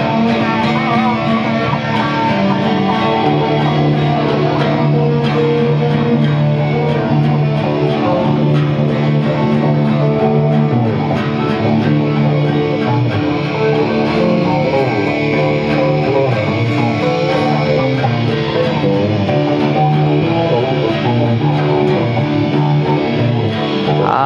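An acoustic guitar strummed with an electric guitar playing along: an instrumental guitar passage with no singing.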